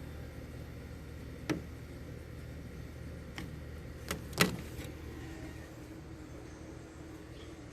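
2011 Frigidaire 12,000 BTU window air conditioner running with a steady hum, with a few sharp knocks over it, the loudest about halfway through.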